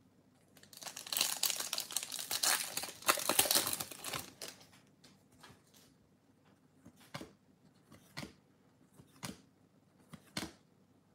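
Foil wrapper of a Bowman baseball card pack being torn open and crinkled for a few seconds, followed by several short soft flicks about a second apart as cards are moved through the stack by hand.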